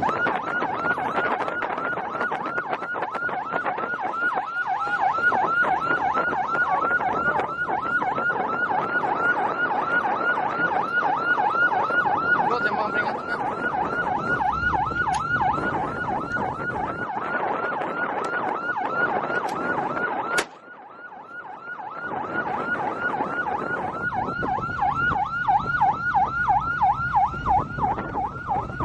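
A patrol boat's siren on a fast yelp, sweeping up and down about three to four times a second over wind noise. It breaks off abruptly about two-thirds of the way through, then starts again.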